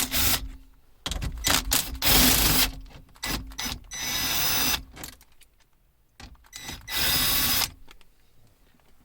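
Cordless power driver running in three short bursts of under a second each, backing out the bolts that hold a car's ignition switch. Short clicks and knocks of the tool and parts come between the bursts.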